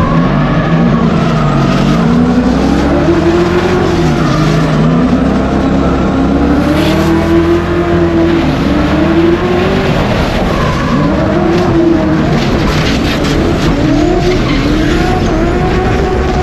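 A V8 drift car's engine revving hard, its pitch rising and falling again and again as the throttle is worked through a drift, over continuous tyre screech.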